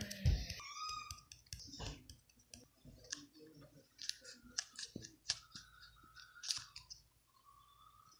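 Scattered light clicks and taps of plastic Lego bricks. A thin, steady high tone is held for a couple of seconds in the second half.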